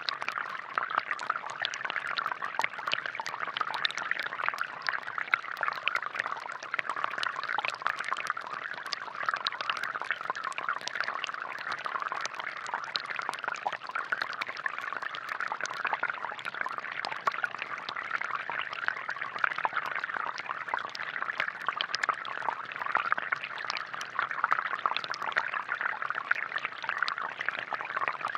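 Water from a balloon-powered DIY fountain's jets spraying and splashing down steadily, a continuous patter of drops.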